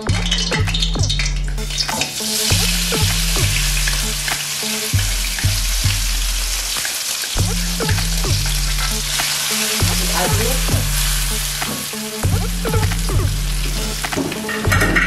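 Ground chili spice paste dropped into hot oil in a wok and sizzling from about two seconds in. A spatula scrapes it off a stone mortar and stirs it against the wok.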